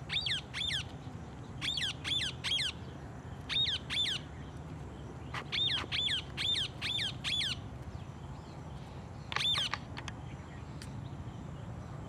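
Rose-ringed parakeet (green ringneck parrot) giving shrill screeches, each short and rising then falling in pitch, in quick runs of two to five calls, about a dozen in all. The calls stop about ten seconds in, leaving a steady low hum of background.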